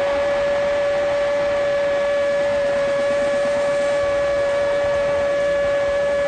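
A radio football commentator holds one long, steady 'goool' cry at a single pitch to call a goal, over a haze of crowd noise.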